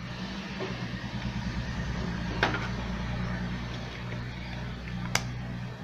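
Engine idling with a low, even pulse, with two sharp clicks of a hand screwdriver on the tool's housing about two and a half and five seconds in.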